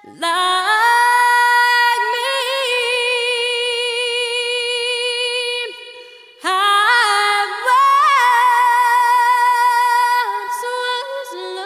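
Background music: a female voice singing long held notes with vibrato, pausing briefly about six seconds in.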